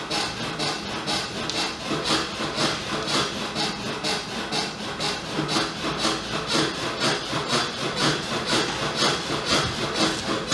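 Hands rubbing briskly back and forth over the body in a massage, an even swishing friction of about three strokes a second.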